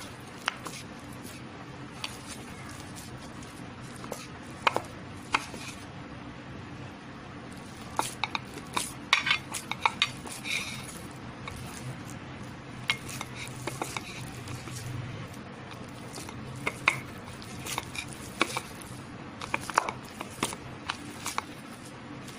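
A hand kneading and mashing soft chhena on a steel plate: irregular light clicks, taps and scrapes against the metal, over a steady low hum.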